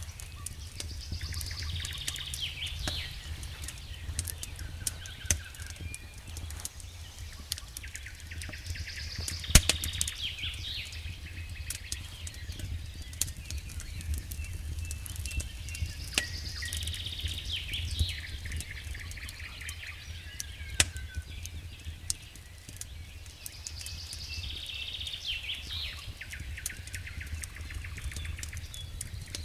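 Wood campfire crackling, with sharp pops scattered throughout and a louder pop about ten seconds in. A bird sings short phrases that return about every seven or eight seconds, over a steady low rumble.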